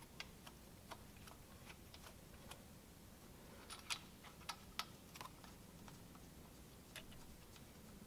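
Scattered light metallic clicks and taps as thumb screws are threaded through a cam-bearing installer plate into the engine case, the loudest few coming together about four to five seconds in, over near silence.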